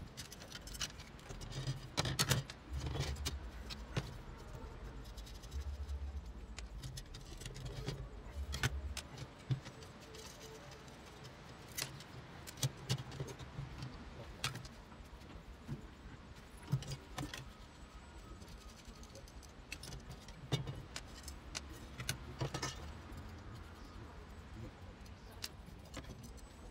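Brass-coloured wire chandelier frame and its shade panels clinking and rattling as they are handled and the panels slid out, with scattered sharp taps and clicks over a low background rumble.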